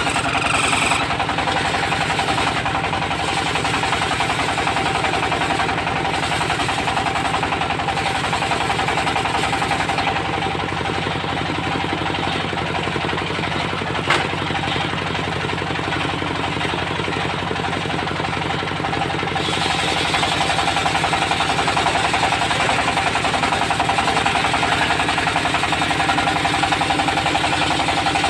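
Diesel engine of a portable circular sawmill running steadily, with the blade's steady whine and the hiss of sawing teak over it. The high hiss thins out for several seconds midway and then comes back; a single sharp tick sounds about halfway through.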